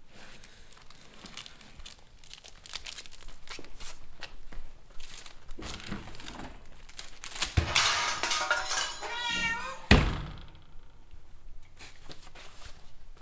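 Scattered crackles and clicks, then a heavy thump followed by a wavering, high-pitched cry and a second, sharper thump as the cry ends.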